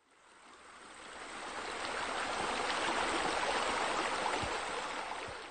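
Running, splashing water like pool bubbler jets and a spa spillover. It fades in over about two seconds and fades out near the end.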